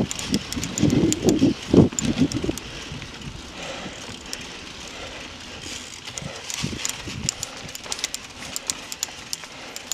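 Mountain bike riding fast over a dirt and leaf-covered singletrack: steady tyre noise with frequent sharp clicks and knocks from the bike rattling over bumps. Loud vocal sounds from the rider in the first two seconds or so.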